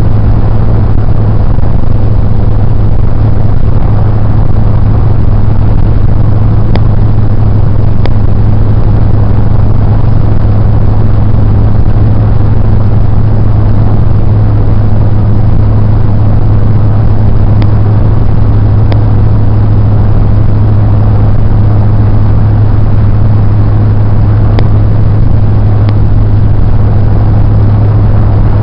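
Steady, loud drone of a car driving, with road and engine noise heard from inside the cabin. A few faint clicks are heard now and then.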